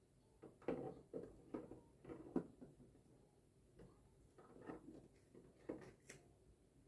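Frozen ice-pack containers being set into an evaporative air cooler's water tank, knocking against it: a string of irregular knocks and clunks, bunched in the first two and a half seconds and a few more near the end.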